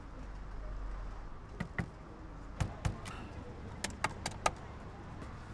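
Cash machine keypad buttons being pressed: about eight short clicks over three seconds, in pairs and then a quicker run of four. A low rumble in the first second.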